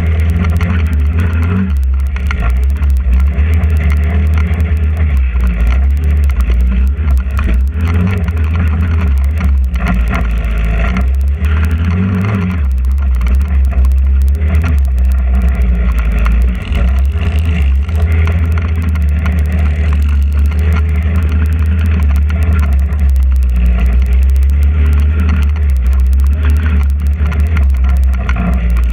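Trailmaster 150 XRX go-kart's GY6 150cc engine running under way on an off-road trail. It is loud and steady with a heavy low rumble, and dips briefly a little past halfway.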